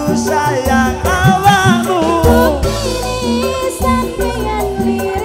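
Live dangdut koplo band music: a duet vocal sung over kendang hand drums, with their pitch-bending low strokes, and bass keeping a steady beat.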